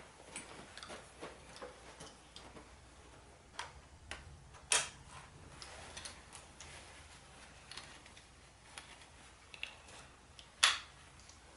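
Scattered clicks, taps and rustles of military gear being handled and put on, with two louder sharp clicks, one about five seconds in and one near the end.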